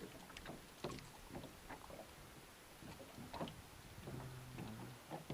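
Faint scattered clicks and small knocks of metal pliers working lure hooks free of a pike's mouth in a small boat, with a brief low hum about four seconds in.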